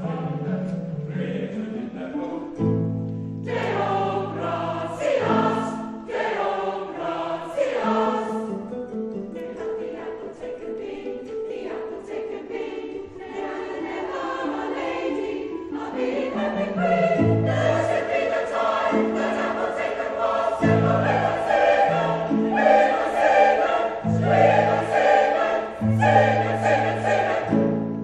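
Mixed choir of men's and women's voices singing, accompanied on an electronic keyboard whose steady low bass notes are held and changed in blocks underneath.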